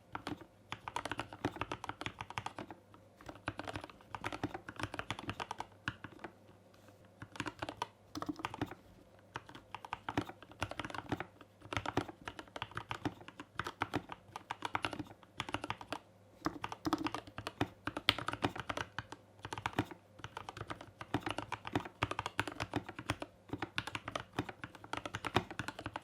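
Typing on a modded GK64S mechanical keyboard with lubed Gateron Yellow Milky Top switches, lubed and Holee-modded stabilizers, foam in a plastic case and an aluminium plate: bursts of quick key presses with short pauses between them.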